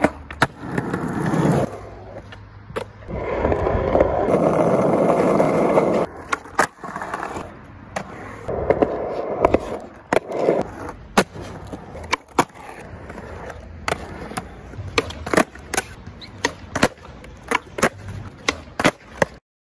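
Skateboard wheels rolling on concrete in long stretches, then a run of sharp clacks of the board popping and landing on the ground. The sound cuts off suddenly near the end.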